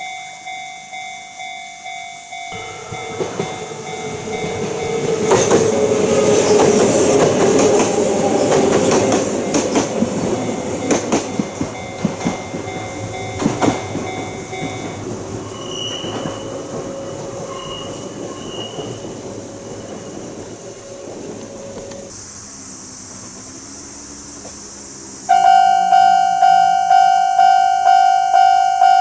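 Japanese level-crossing alarm ringing in steady pulses while a Kintetsu train passes over, its wheels clacking over rail joints with some squeal. The alarm stops after the train goes by. Near the end a different crossing's alarm starts up loudly, pulsing about twice a second.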